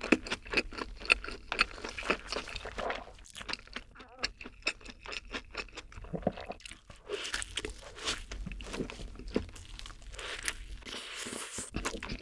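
Close-up eating sounds of a double cheeseburger: rapid clicky chewing, a quieter spell around the fourth second, a fresh bite into the burger about six seconds in, then chewing again.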